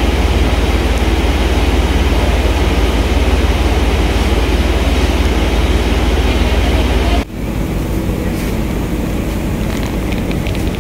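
Tea-processing machinery, a rotating drum and conveyor, running with a loud steady drone and deep hum. About seven seconds in it gives way suddenly to a different, slightly quieter machine noise with faint clicks.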